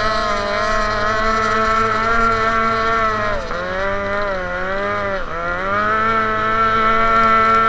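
Small racing boat's engine running hard at high revs, heard from on board. Its pitch sags about three and a half seconds in, dips again just after five seconds, then climbs back to full revs.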